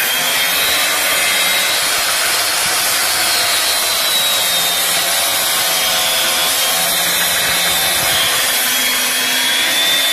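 Angle grinder with a cutting disc running under load, cutting through the copper windings of a large electric motor's stator. It makes a steady, loud, harsh cutting noise with a high tone that sags slightly in pitch.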